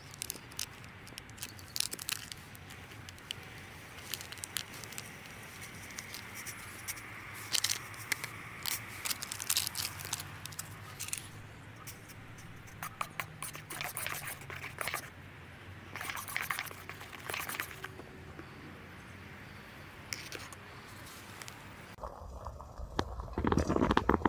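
A metal spoon stirring and clinking against the inside of a steel camping mug, in many short irregular ticks, over a steady faint hiss. About two seconds before the end the sound changes to a louder low rumble.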